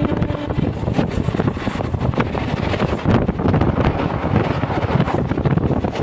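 A moving train's steady rumble and rattle, with wind buffeting the microphone.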